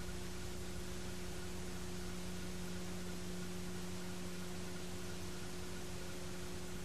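Steady hiss with a low electrical hum and no other sound: noise on an old videotape recording's audio track, with no game sounds audible.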